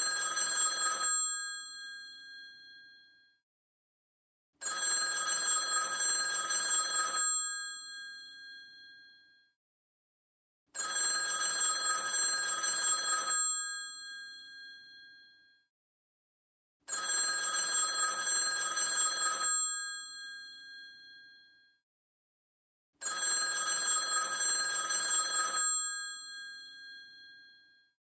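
Vintage telephone bell ringing in a steady ring cadence: a bright metallic ring lasting about two and a half seconds, repeating about every six seconds, each ring fading away briefly after it stops.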